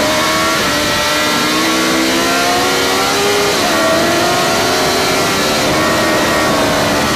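Suzuki GSX-R sportbike's inline-four engine pulling hard at high revs, its pitch climbing under acceleration with one upshift about three and a half seconds in, over steady wind rush.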